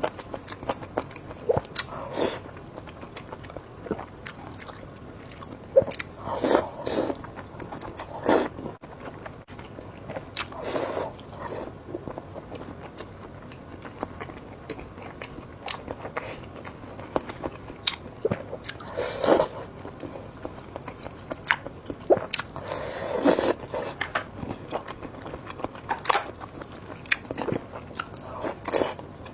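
Close-miked eating: irregular bites, crunches and chewing, with sharp clicks and a few longer noisy bursts scattered through.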